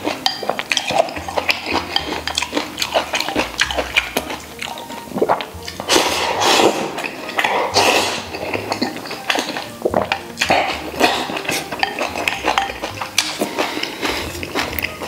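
Noodles slurped from a bowl, with wooden chopsticks clicking and scraping against the ceramic bowl and some chewing. The longest, loudest slurps come about halfway through.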